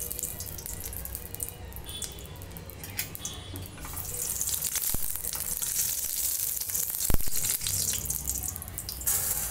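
Butter sizzling as it melts in a hot stainless-steel kadai, with a metal spoon scraping and clinking against the pan; one sharp clink about seven seconds in.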